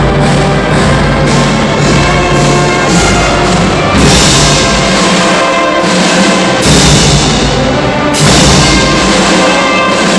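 Large youth symphony orchestra of violins and cellos playing loudly, with three sudden louder accents from the whole ensemble about four, six and a half and eight seconds in.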